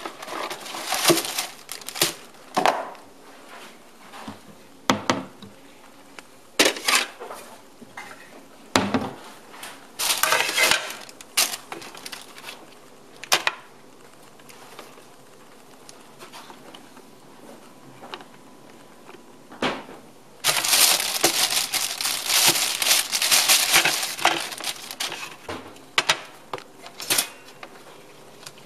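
Close kitchen handling noises while Toaster Strudel is prepared: a cardboard box and plastic packaging being handled, with short knocks and clatters of a plate on the counter. About two-thirds of the way through comes a longer spell of loud rustling.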